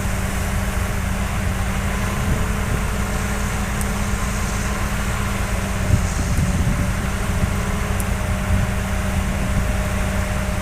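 Heavy construction machine's diesel engine running steadily at a low, even drone.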